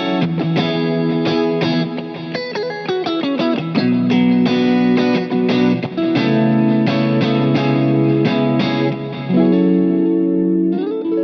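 Vola OZ RV TNC electric guitar played through effects with some distortion: a quick run of short picked notes in the first few seconds, then longer held notes and chords.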